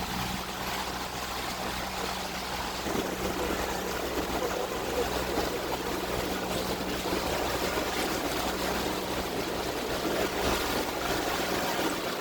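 Motorboat running on a lake: a steady low engine hum under a continuous rush of water.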